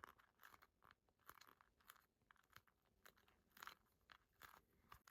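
Faint, irregular crinkling and rubbing as fingers press a self-adhesive bike tire patch firmly down onto the inside of a rubber RC crawler tire.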